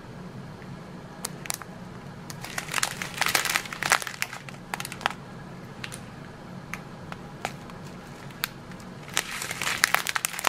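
Small clear plastic zip bags of square resin diamond-painting drills crinkling as they are handled, in irregular bursts of crackle that are busiest about two to four seconds in and again near the end.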